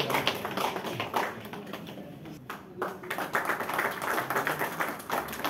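A small group of people clapping by hand. The applause thins out about two seconds in, then picks up again.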